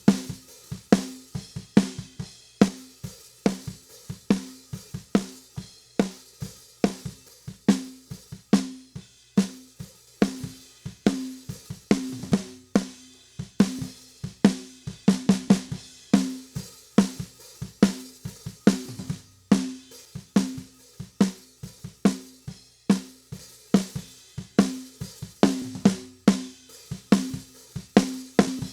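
Recorded acoustic drum kit playing a steady groove, with kick, snare, hi-hat and cymbal hits in an even beat.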